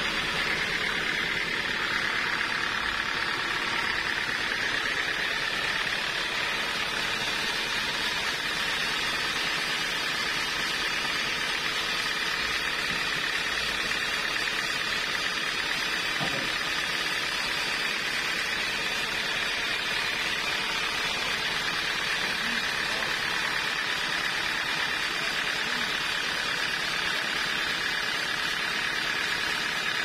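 Sawmill machinery running steadily without cutting, a constant whine over a steady hiss.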